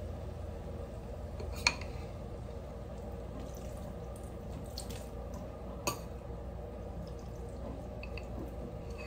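Light clicks and knocks of kitchen handling over a steady low hum, with one sharp click about a second and a half in and another about six seconds in.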